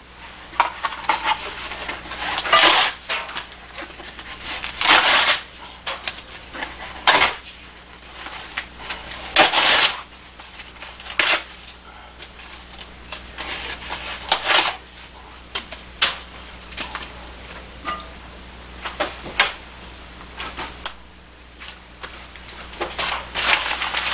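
Irregular crumpling and rustling with occasional clunks as a cast-iron wood stove is loaded by hand through its open top, about ten short bursts spread unevenly, over a low steady hum.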